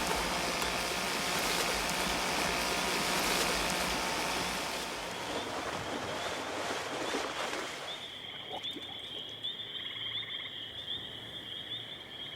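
A steady rushing noise like running water for about the first eight seconds. Then a chorus of night insects such as crickets trills steadily.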